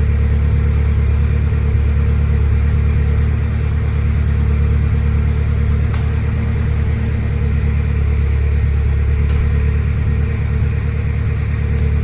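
Ferrari 360 Spider's V8 idling steadily, with a faint click about halfway through.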